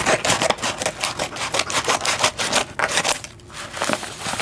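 A package being opened by hand: packaging crinkling with rapid clicks, dense for about three seconds, then a few sparser ones.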